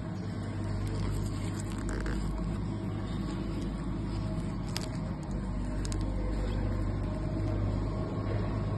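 A steady low hum throughout, with a few light clicks about two, five and six seconds in as the shoes are handled.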